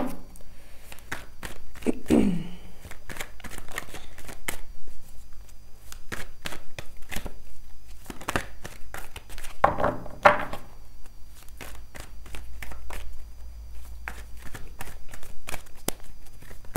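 A deck of tarot cards being shuffled by hand: a steady, irregular patter of quick card clicks and slaps.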